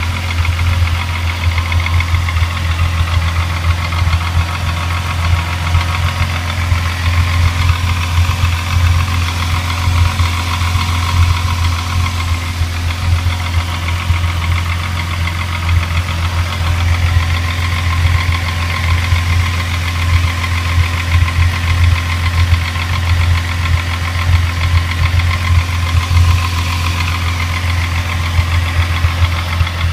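Rebuilt VW Mk3 VR6 engine idling steadily with a rapid, continuous knocking. Others have suggested to the owner that the knock could be the timing chain tensioner or the timing chain.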